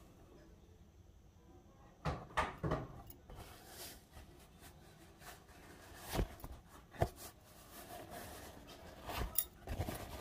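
Handling noises: light knocks and rustles, coming in clusters about two seconds in, around six to seven seconds, and near the end, as a tissue is handled over the arm.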